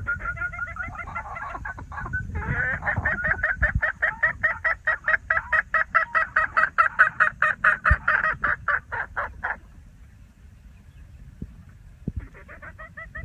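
White Laced Red Cornish chickens calling: a pitched call in the first two seconds, then a fast run of short repeated calls, about five a second, for some seven seconds. A shorter run of the same calls comes near the end.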